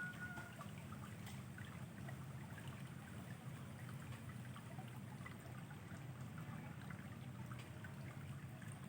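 Faint, steady running water of a stream, with small scattered ticks and splashes.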